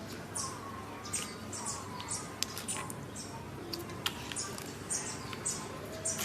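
Slime being kneaded and stretched by hand, making a run of short sticky, squeaky crackles and clicks several times a second.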